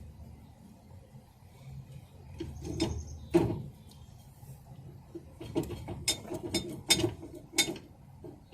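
Hand work on a trailer wheel's brake assembly: sharp clicks and knocks of tools and parts being handled. There is one louder knock about three and a half seconds in, then a quick run of clicks toward the end.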